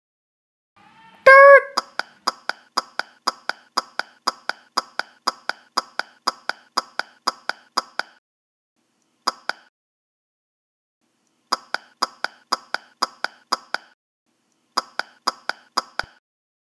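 A short rising pitched sound and a loud hit about a second in, then a run of sharp, evenly spaced clicks, about four a second, that pause twice and start again.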